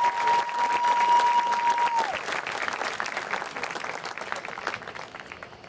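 Stadium crowd applauding and cheering after a marching band number, fading toward the end. A single steady high tone is held over the clapping and stops about two seconds in.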